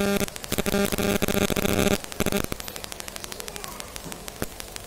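Dense crackling clicks over a steady buzzing hum for about two seconds, cutting off abruptly, then sparse faint ticks like static.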